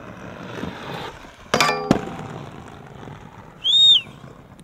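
Skateboard wheels roll on paving stones, then about a second and a half in the board strikes a hollow steel handrail with a ringing metallic clang, followed by a sharp clack. Near the end comes a short high squeak that rises and falls.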